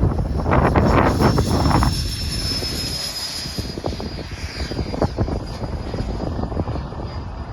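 Electric ducted fans of a Freewing F-14 RC jet whining at a high pitch, rising a little midway and then holding steady, with heavy wind buffeting the microphone, strongest in the first two seconds.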